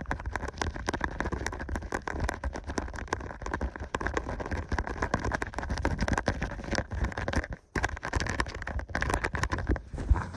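Rapid, dense tapping and scratching close to the microphone, with a low rumble of handling underneath. It breaks off briefly once, a bit before the end.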